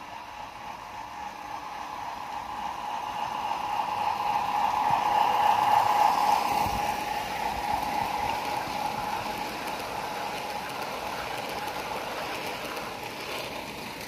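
Large-scale garden-railway model train running past on its track: a train of flat wagons rolling and rattling over the rails with a steady whine. It grows louder as it approaches, is loudest about six seconds in, then fades as the wagons pass.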